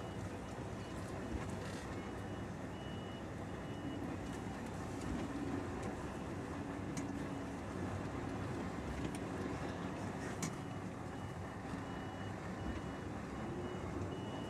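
Heavy truck's diesel engine running at low speed while it manoeuvres, heard from inside the cab. A faint, high-pitched reversing alarm beeps evenly through it, pausing for a few seconds about a quarter of the way in and then resuming.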